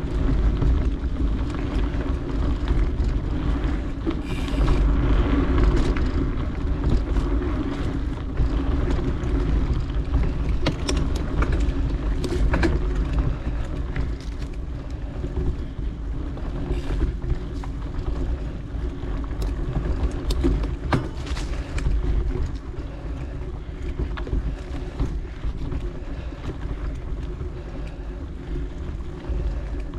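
Wind buffeting the microphone of an action camera moving fast down a dirt singletrack, over the rumble and hum of a mountain bike rolling along the trail, with scattered sharp clicks and ticks from the bike and trail.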